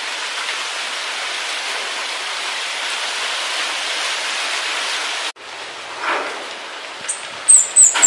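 Steady hiss of wind through tree foliage that cuts off abruptly about five seconds in, leaving a fainter hiss. Near the end comes a quick run of high, thin, descending chirps from a minivet.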